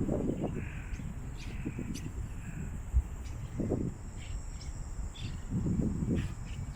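Wind buffeting the microphone in irregular low gusts, with one sharp thump about three seconds in. Faint short high chirps and a steady thin high tone sound over it.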